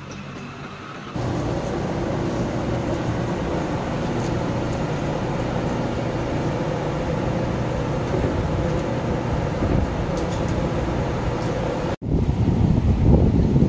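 Steady outdoor street noise with a constant mechanical hum that steps up suddenly about a second in. Near the end it cuts to louder rumbling wind buffeting the microphone.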